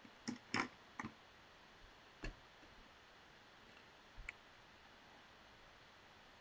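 Several scattered light clicks and taps from hands working at a desk, the loudest a short scrape-like click about half a second in, spread irregularly over the first four and a half seconds.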